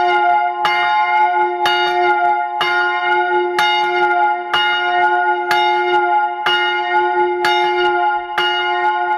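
A large church bell struck about once a second, each stroke with the same pitch and ringing on into the next, a steady toll.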